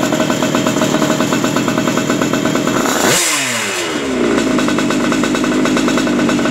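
TKM 135cc reed-valve two-stroke kart engine running at a steady, rhythmic idle during piston break-in. About three seconds in it is blipped once: the revs shoot up and fall back to idle within about a second.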